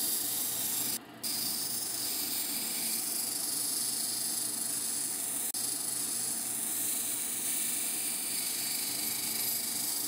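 Lapidary cabbing machine running, its water-cooled diamond wheels spinning while a tiger eye stone on a dop stick is ground against a coarse wheel: a steady hiss that cuts out briefly about a second in.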